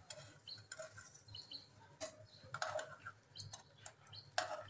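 Potato slices frying in shallow oil in a nonstick pan, faintly crackling. Scattered light clicks and taps come from a spatula and then tongs against the pan as the slices are turned.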